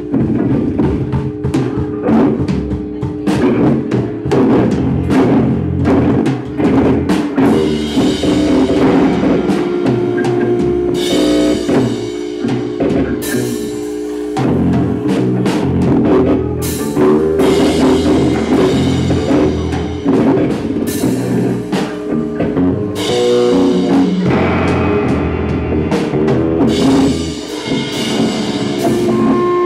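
Loud live rock band playing: drum kit, bass guitar and electric guitar together.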